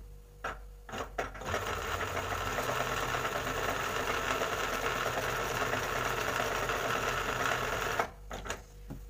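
Embroidery machine stitching a patch onto fabric: a few clicks, then the machine starts about a second and a half in, runs steadily for about six seconds, and stops suddenly, with a couple of clicks after.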